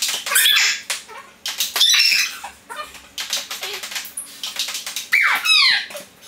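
A table-tennis rally played back sped up: the ball clicks quickly off the paddles and table, mixed with squeaky, chipmunk-like sped-up voices. About five seconds in there is a high squealing cry whose pitch falls steeply.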